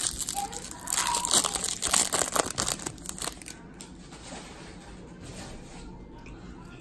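Wrapper of a baseball card pack crinkling and tearing as it is opened, for about the first three and a half seconds, followed by faint rustling as the cards are handled.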